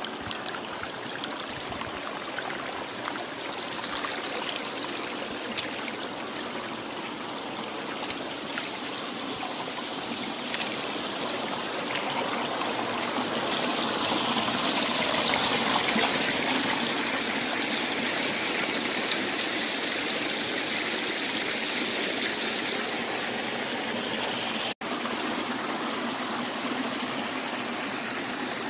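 A stream flowing steadily, water rushing and trickling. It swells a little louder about halfway through and cuts out for an instant near the end.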